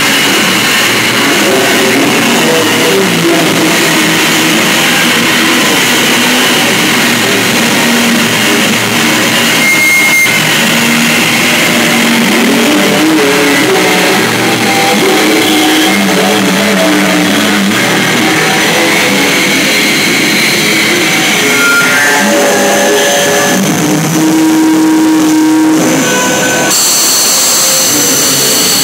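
Live, heavily distorted electric guitar played very loud through amplifiers: a dense, harsh wall of noise with held notes and feedback tones. A set of high, steady whines comes in near the end.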